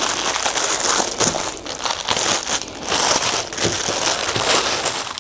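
A clear plastic bag crinkling and rustling in irregular rushes as a folded shirt is handled and slid out of it.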